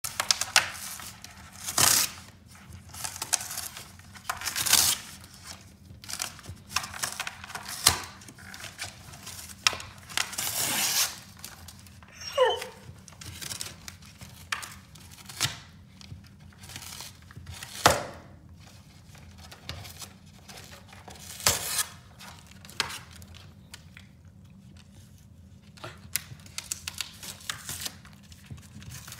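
Corgi tearing and chewing a flat sheet of cardboard with its teeth: irregular ripping and crinkling, some rips about a second long, with quieter gnawing between. A short falling squeal about twelve seconds in.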